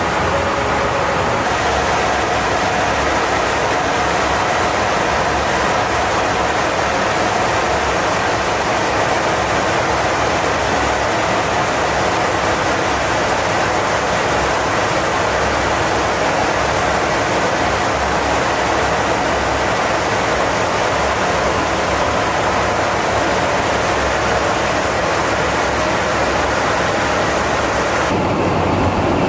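Flight-deck noise of a KC-135 Stratotanker in flight: a loud, steady rush of airflow and jet engine noise, with a faint steady whine through it.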